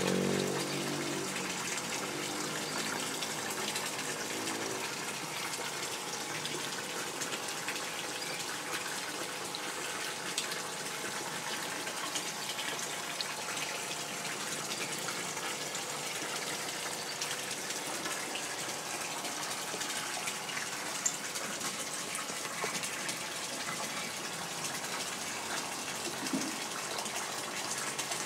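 Water pouring steadily from a pipe into a concrete fish pond, a continuous splashing gush with a few faint clicks.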